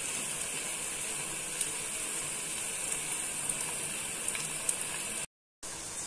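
Chopped onions and ground spices frying in hot oil in a nonstick kadai: a steady sizzle. It cuts out to silence for a moment a little after five seconds in, then resumes.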